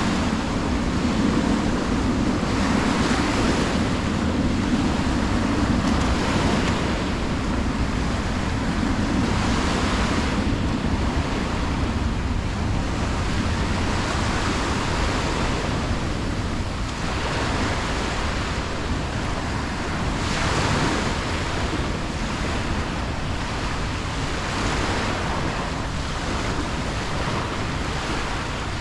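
Small sea waves breaking and washing up the shore, a surge every few seconds, over wind rumbling on the microphone. A low hum fades out in the first ten seconds or so.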